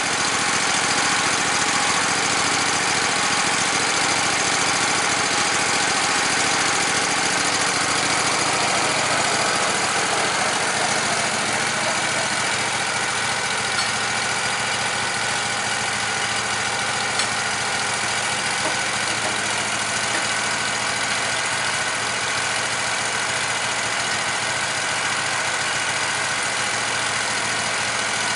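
Wood-Mizer LT15 portable band sawmill running steadily on its gas engine while its band blade cuts a white oak log into boards.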